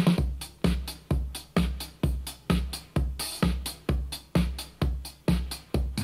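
Electronic disco-house music with a steady kick drum about twice a second and heavy bass, played through Edifier R1010BT desktop speakers and recorded in the room.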